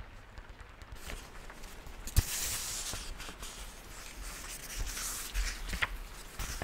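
Paperback book handled close to the microphone: a sharp tap about two seconds in, then the pages rustle as they are leafed through, with a few small clicks near the end.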